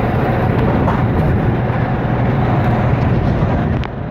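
Golf cart driving along: a steady low rumble of its running gear and tyres. It drops off after a click near the end.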